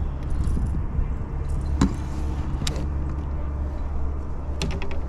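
A landed bass being handled in a mesh landing net in a kayak: a few sharp clicks and knocks, with a quick clatter of small clicks near the end, over a steady low rumble.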